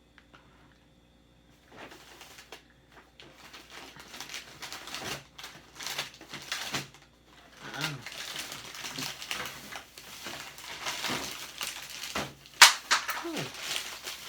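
Close-miked biting and chewing of a fried chicken sandwich on a bun, an irregular run of crunchy, crackly mouth sounds with a sharp click near the end, mixed with paper crinkling. A short falling hum comes near the end.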